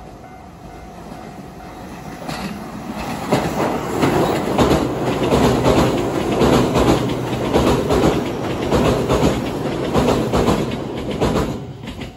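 JR West 227 series electric train crossing a steel railway bridge, its wheels clattering rapidly over the rail joints above a rumble. The noise builds about two seconds in and dies away at the end.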